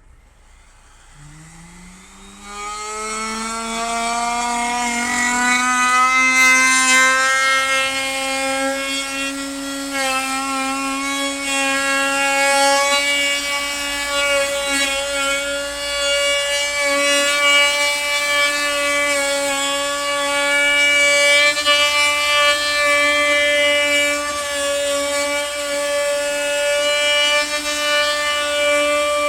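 Electric wood router starting up about a second in, its whine rising in pitch and then running steadily at full speed, with slight dips as the round-over bit cuts along the edge of the wooden stand.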